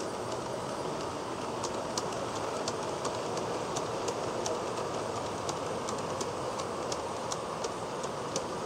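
G-scale garden railway train rolling along brass track with a steady running hum, its wheels clicking sharply over the rail joints about three times a second.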